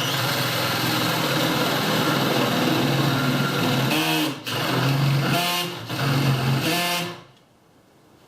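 Power drill running under load, boring a 1-inch hole into a wooden camper door. The motor speed dips and climbs back twice as the trigger is eased and squeezed, and it stops about seven seconds in.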